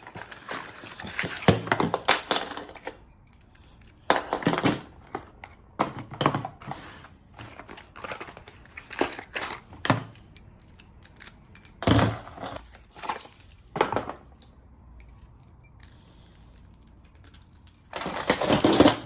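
Metal clinking and clattering of padlocks and their keys being handled and set down, in irregular bursts with quiet gaps between, and a longer rattle near the end.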